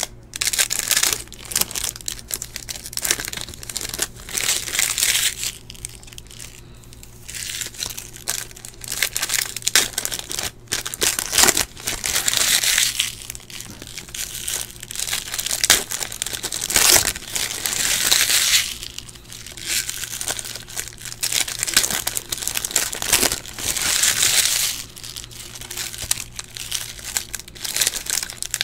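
Foil trading-card pack wrappers crinkling and tearing as packs are ripped open by hand, in repeated bursts.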